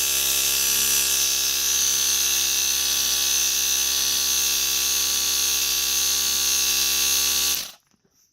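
Small cheap 12-volt piston air compressor running steadily with a fast, buzzing whine while it pumps up a motorcycle rear tire. It is switched off and stops abruptly near the end.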